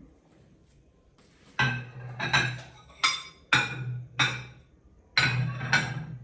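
Ceramic dinner plates clinking as they are set down and stacked: about seven sharp ringing clinks in quick succession, starting about a second and a half in.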